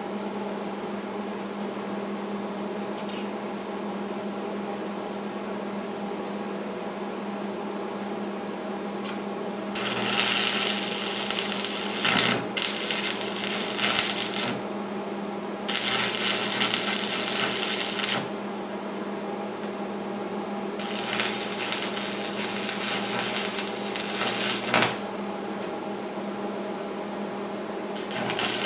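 Arc welder humming steadily, then five spells of crackling, hissing welding arc of two to four seconds each, the first about ten seconds in and the last near the end, as steel is stick-welded.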